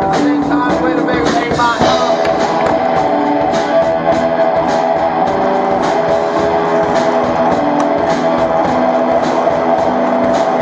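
Rock music with a bass line and guitar over a steady beat.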